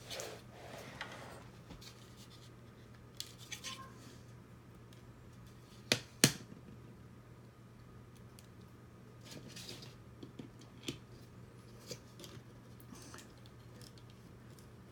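Small plastic kit parts and screws being handled and fitted by hand, with scattered light clicks and taps and two sharper clicks close together about six seconds in.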